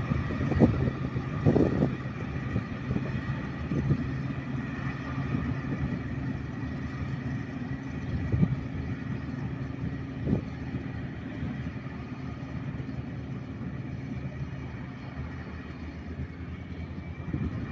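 Diesel engines of earthmoving machines running steadily as a low hum, with a few brief knocks.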